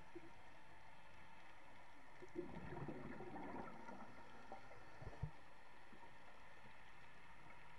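Faint underwater hiss picked up through a camera housing, with a burst of scuba exhaust bubbles gurgling about two and a half seconds in for about a second, and a short knock about five seconds in.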